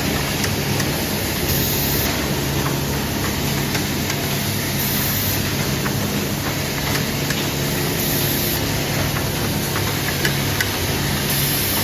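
A machine running steadily: an even mechanical hum with hiss, short bursts of higher hiss about every three seconds, and a few faint clicks.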